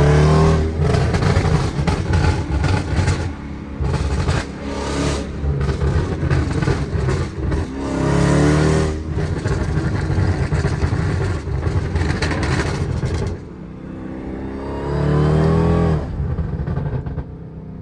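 Supercharged 6.2-litre Hemi V8 of a Dodge Durango SRT Hellcat with a Borla ATAK cat-back exhaust, heard from inside the cabin with the window down, under hard acceleration. The engine note rises and falls several times, dips about 13 seconds in, then rises once more near the end.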